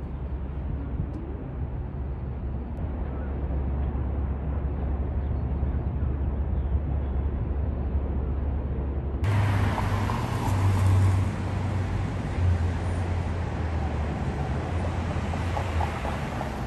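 A steady low rumble, then from about nine seconds in, louder city street noise with traffic.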